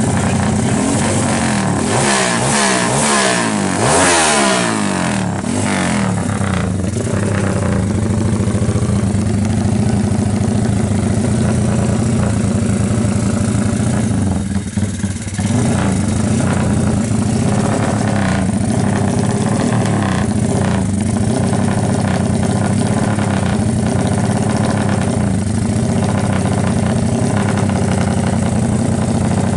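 Bored-up Honda Tiger single-cylinder four-stroke engine, about 270 cc, running. It is revved up and down a few times in the first few seconds, then settles to a steady run with a short drop about halfway through.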